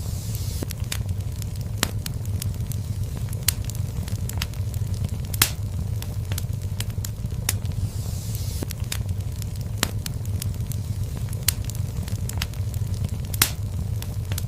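Wood fire burning in a fireplace: a steady low rumble of flames under irregular sharp pops and crackles, with two louder pops and brief faint hisses.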